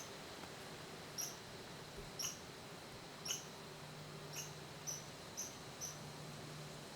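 Faint, short, high-pitched chirps from a small animal. They come about once a second, then about twice a second from roughly four seconds in, over a low steady hum.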